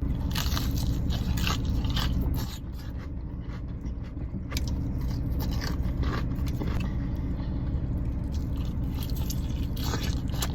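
A person biting into and chewing crispy fried chicken, the breaded skin crunching in irregular bites over a steady low rumble.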